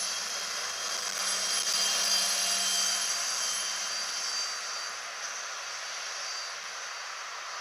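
Class 175 diesel multiple unit pulling away, its diesel engines and running gear making a steady noise with a high whine. It grows a little louder about two seconds in, then fades as the train draws off.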